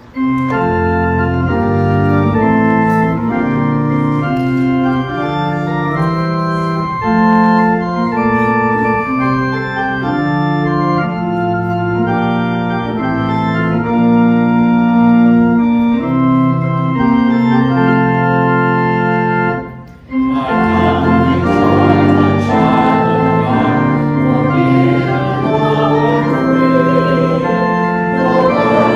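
Church organ playing a hymn with steady held chords, breaking off briefly about 20 seconds in; then the organ resumes and the congregation sings the hymn with it.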